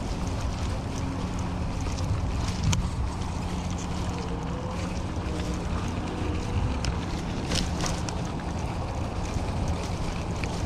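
Electric bike ride over a dirt track: wind buffeting the microphone over a steady low hum and the tyres' rumble, with a few sharp clicks as the bike rattles over bumps.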